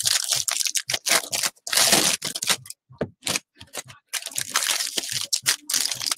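Foil wrappers of 2017 Topps Update baseball card packs being torn open and crinkled by hand: a run of irregular crackles and tears, thinning out briefly about three seconds in.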